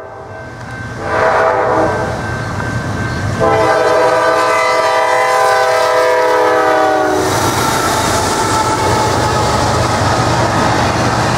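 Norfolk Southern GE diesel locomotives (a C40-9W leading an ES44AC) passing close by, sounding a multi-note air horn: a short blast about a second in, then a long blast from about three and a half to seven seconds. Then the steady rumble of the locomotives and intermodal cars rolling past.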